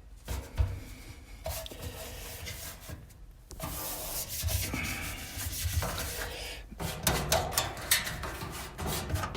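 Rubbing and scraping inside a clothes dryer's cabinet as old lint and dirt are cleaned off by hand around the heater and blower housing, with a few light knocks in the later seconds.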